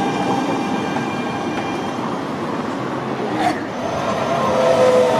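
Modern articulated low-floor tram, a Siemens Combino, running on street track: a steady rumble with a faint motor whine, growing louder near the end as a tram approaches. A brief sharp sweep about three and a half seconds in.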